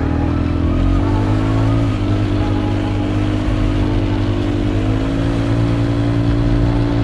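SYM Trackrunner 200 ATV's single-cylinder four-stroke engine running while riding, its note rising and dipping a little with the throttle.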